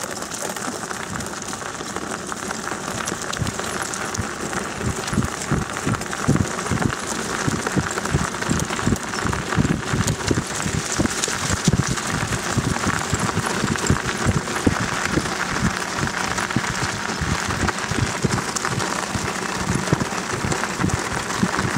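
Wheels of a dog-drawn rig rolling fast over a gravel path: continuous crunching and rattling with many irregular small knocks.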